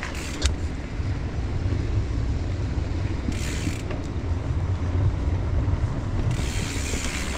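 Mountain bike rolling across a wooden footbridge: the tyres make a steady low rumble over the planks, with a couple of sharp clicks near the start and two short spells of hiss, one midway and one near the end. The bike's rear-triangle bearings are worn.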